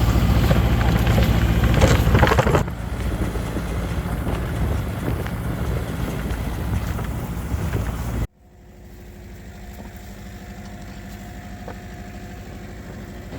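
Farm machinery engine running steadily with a deep rumble, louder for the first two or three seconds. About eight seconds in it cuts off abruptly to a quieter, steady engine hum.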